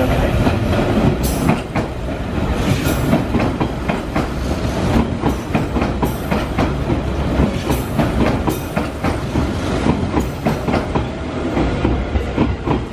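Hanshin 5000 series "Jet Car" electric train running past over points, its wheels clattering over the rail joints and crossings in a long run of sharp, irregular clicks.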